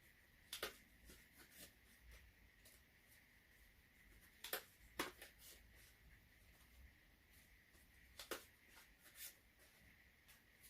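Faint handling noises as a package is unboxed: a few short, sharp clicks and rustles, the loudest two about four and five seconds in, over a faint steady high tone.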